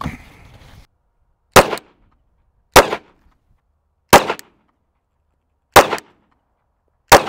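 Five 9mm pistol shots fired one at a time, roughly a second and a half apart, each a sharp crack with a short echo.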